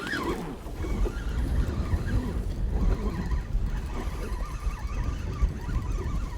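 Strong wind buffeting the microphone in uneven gusts, a low rumble that rises and falls.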